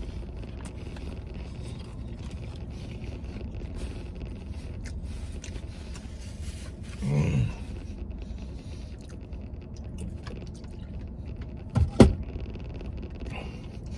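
Eating noises: a plastic fork scraping and picking at fries in a paper tray, with small clicks, over a steady low rumble in the truck cab. A short grunt comes about seven seconds in, and a sharp thump, the loudest sound, about twelve seconds in.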